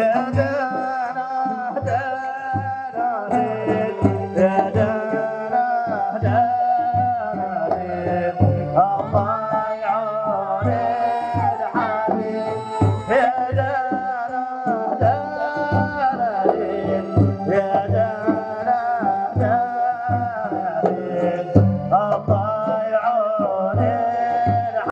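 Omani Dhofari folk music: a singer, oud and keyboard carry a bending Middle Eastern melody over a steady, regular drum beat.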